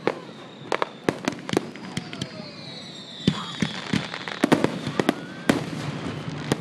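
Aerial fireworks shells bursting overhead in an irregular run of sharp bangs, sometimes several a second, with the loudest cluster about four and a half seconds in.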